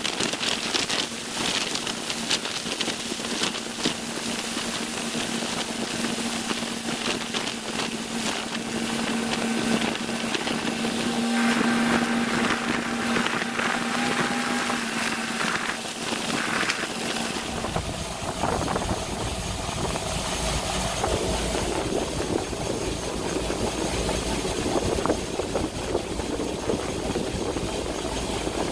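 Gleaner S98 combine running steadily with a constant hum and whine over a hiss. About two-thirds of the way through, a deep low rumble joins in.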